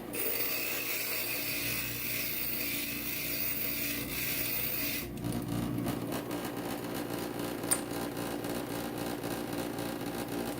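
Inland stained glass grinder motor running, with a piece of glass pressed against the spinning grinding bit for about five seconds, a high gritty grinding hiss, then the motor running on alone. A single light click near the end.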